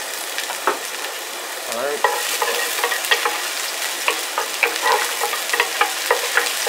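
Chopped shallots sizzling in hot olive oil in a nonstick pan on medium-high heat. From about two seconds in, a wooden spoon stirs them, adding quick scrapes and taps against the pan.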